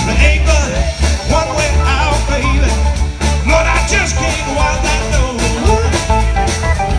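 Upbeat song with a steady beat, strong bass and a singing voice.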